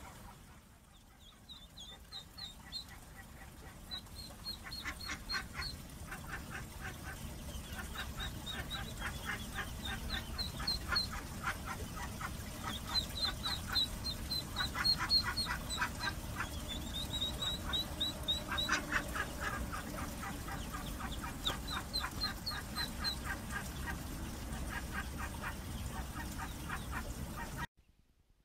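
A group of young ducks or geese peeping: many short high calls in quick runs and clusters, over a low steady rumble. The sound cuts off suddenly near the end.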